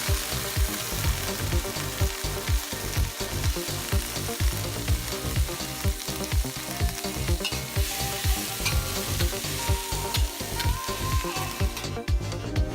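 Noodles sizzling steadily as they are fried and stirred in a hot pan. Background music with a steady beat runs underneath.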